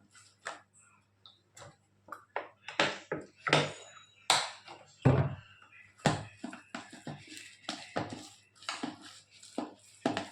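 A spoon clinking and scraping against a bowl as a thick spice paste is stirred: irregular knocks, several a second, busier from about two seconds in.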